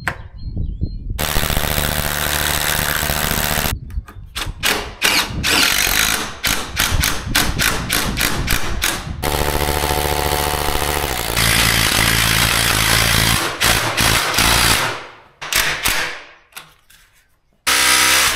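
Cordless SDS hammer drill boring through a door frame into the masonry wall for frame fixers, running in several long bursts of rapid hammering with short pauses between them. A short loud burst comes just at the end.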